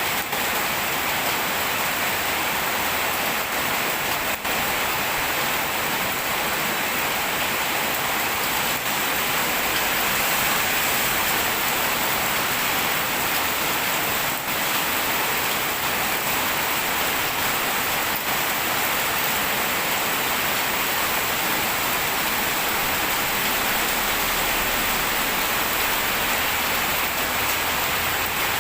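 Heavy rain falling steadily, a dense even hiss of rain on surfaces with the odd faint drip tick.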